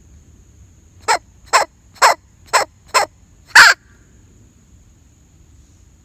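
Primos bellows squirrel call squeezed six times in quick succession, giving short, raspy barks about half a second apart, the last one longer and the loudest. It imitates a squirrel's bark to draw squirrels in.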